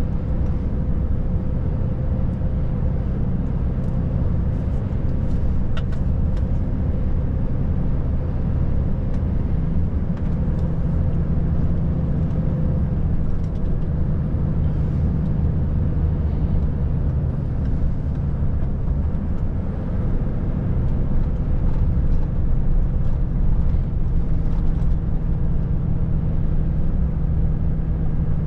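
Volvo FH540 truck's 13-litre six-cylinder diesel running steadily under way, a continuous low hum over the rush of tyres on the road.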